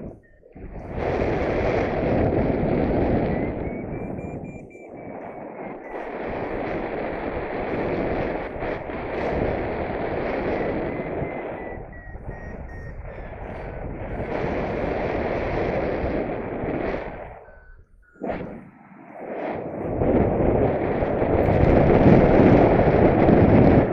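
Wind buffeting the microphone during a paragliding flight: a loud rushing noise that surges in gusts, with short lulls about five seconds in and again near eighteen seconds.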